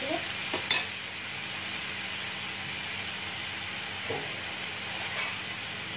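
Onion and tomato chutney sizzling gently in an iron kadai over a low gas flame, a steady hiss. A single sharp clink sounds about a second in.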